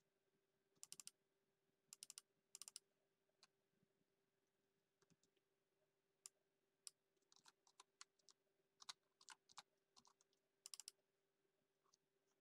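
Faint clicks of a computer mouse and keyboard: quick clusters of clicks about a second and two seconds in, then scattered single clicks and another quick cluster near the end, over a faint steady hum.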